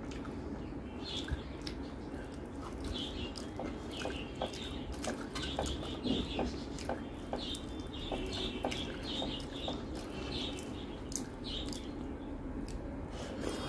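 Fingers mixing rice with dal and fried vegetables on a steel plate, close to the microphone: soft wet squishing with many small clicks.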